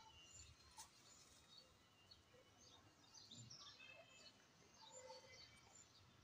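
Near silence: faint outdoor ambience with scattered short, high bird chirps.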